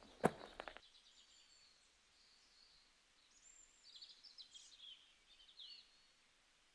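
A single footstep on paving right at the start, then near quiet outdoor air with faint, high bird chirps and twitters from about three and a half to six seconds in.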